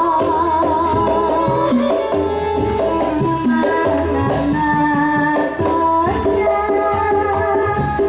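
Live Ndolalak folk dance music, amplified: regular drum strokes with tambourine-like jingles under a held, sustained melody line that wavers near the start.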